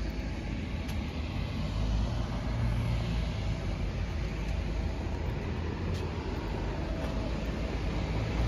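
Steady low rumble of airport ambience: distant aircraft and apron vehicles heard across the open airfield.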